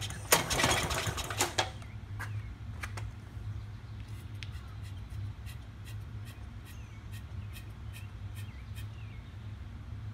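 Briggs & Stratton 6 hp engine of a Snapper Big 6 mower running briefly on its first start after a carburettor rebuild, then cutting off about a second and a half in: it dies because the throttle is set all the way down. A faint low steady hum follows.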